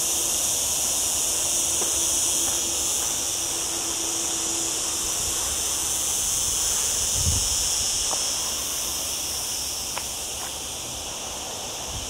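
Cicadas buzzing in a dense, steady, high-pitched chorus, over a low rumble, with a brief low thump about seven seconds in.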